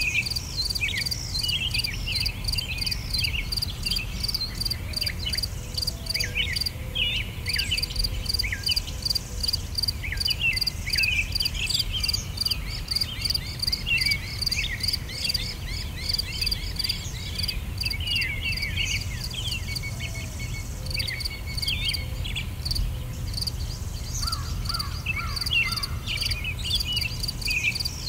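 Nature ambience: crickets chirping in a steady fast pulse, with birds giving many short, sweeping chirps over it and a low rumble underneath.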